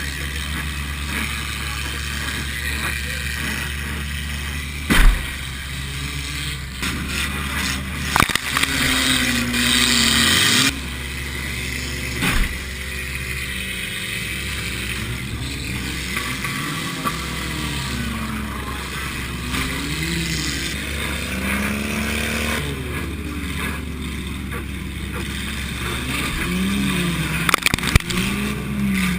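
Demolition-derby car's four-cylinder engine, heard from on board a 1987 Honda Accord, revving up and down, with several sharp crash impacts of cars colliding, the loudest about five seconds in and others near eight, twelve and twenty-eight seconds.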